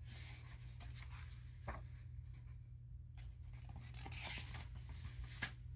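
Pages of a hardcover children's picture book being turned and smoothed flat by hand. Soft paper rustles come near the start and again about four seconds in, with a light tap near the end, over a faint low hum.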